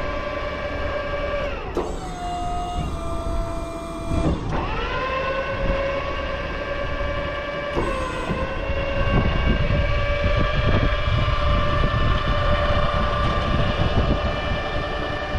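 Truck-mounted crane's motor whining steadily as it lowers a granite grave marker in lifting straps. Its pitch drops as it stops about 2 s in, climbs back as it restarts a little after 4 s, and dips briefly near 8 s.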